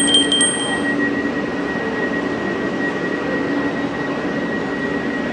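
Steady rushing noise of a standing Alstom ICNG electric train, with a constant high whine and a low hum. A few sharp clicks and a short high electronic tone come in the first second.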